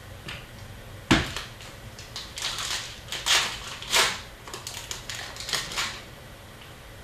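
Trading card pack wrapper crinkling and cards being handled: a sharp tap about a second in, then a run of short rustling, crinkling swishes as the cards are shuffled and sorted.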